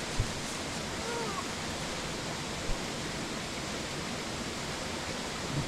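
Steady rush of falling water from a waterfall, with two brief low thumps about a quarter second and nearly three seconds in.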